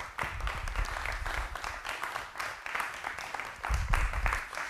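Audience applauding: dense, even clapping, with a low rumble at the start and again briefly near the end.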